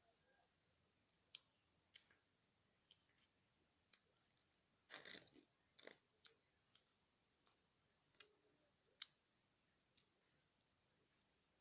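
Faint sticky clicks and squelches of homemade slime being worked by hand, coming irregularly, with a louder squelchy burst about five seconds in.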